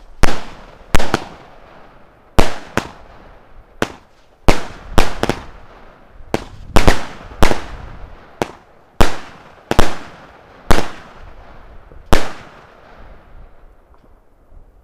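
Consumer fireworks cake firing its shots one after another: about seventeen sharp bangs at uneven intervals, roughly one every 0.7 seconds, with the last one about twelve seconds in. The cake was lit with its aluminium foil cover still on and threw shots off in all directions.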